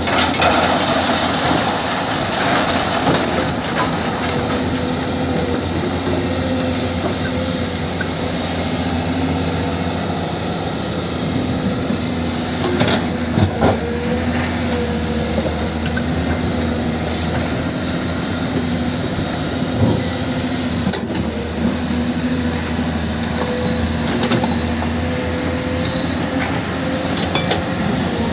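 Hydraulic excavator's diesel engine running steadily under load, with a steady droning tone, and a few sharp knocks near the middle.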